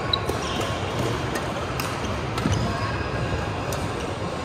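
Badminton play in a large sports hall: sharp racket hits on the shuttlecock and short sneaker squeaks on the wooden court floor, over the steady din of other courts in play.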